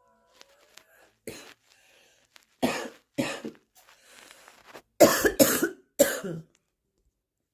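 A woman's harsh smoker's morning cough, her chest congested: one cough about a second in, two more near the three-second mark, then the loudest run of three a little past five seconds.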